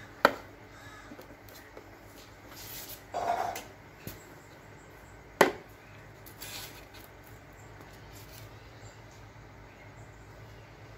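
Two sharp knocks, about five seconds apart, with a short scraping rustle between them and a fainter one after.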